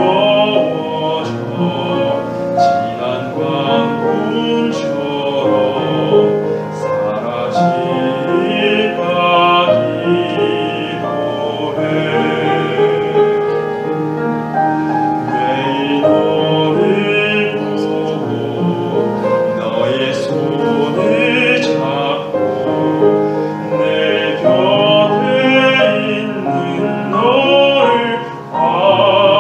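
Operatic duet singing with piano accompaniment, the voices sustaining long notes with wide vibrato.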